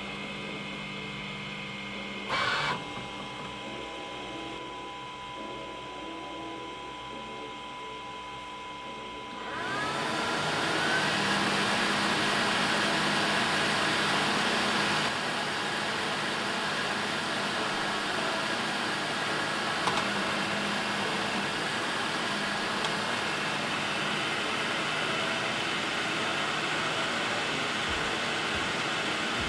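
Elegoo Centauri Carbon 3D printer running, at first with only a faint steady hum and a short knock about two and a half seconds in. About ten seconds in, a loud steady fan rush starts with a brief rising whine as it spins up, and keeps going.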